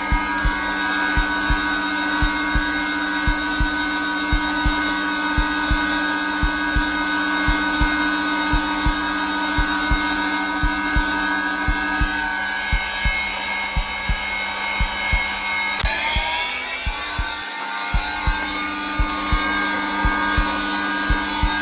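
Zelmer vacuum cleaner running steadily on its lowest setting, a constant motor whine, layered with the regular low thumps of a heartbeat. About sixteen seconds in there is a click and the motor's pitch rises and settles again.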